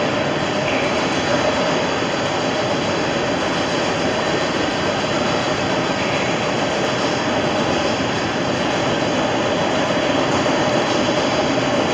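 Toueur, the electric chain-towing tug of the Riqueval canal tunnel, running as it approaches through the tunnel, hauling itself along the chain laid on the canal bed. It gives a steady rumble with a constant hum.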